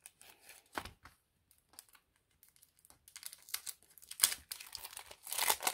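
Clear plastic packaging sleeve being handled and opened, crinkling. A few sparse rustles at first, then dense crinkling from about halfway through.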